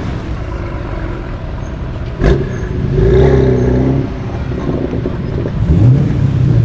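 Tuned BMW M3 F80's twin-turbo straight-six through an Akrapovic Evolution race exhaust, running and being revved. A single sharp exhaust crack comes about two seconds in, followed by a louder rev and another rising rev near the end.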